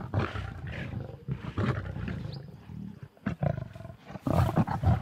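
Lions growling in short, irregular bursts while feeding on a warthog carcass, the aggressive sound of adults squabbling and keeping cubs off the meat; the loudest growls come near the end.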